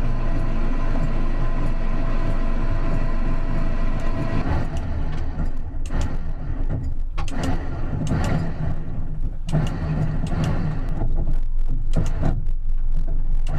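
Boat engine running as the throttle is worked and the boat gets under way. About four seconds in, the sound turns rougher and uneven, with a rushing noise over the engine.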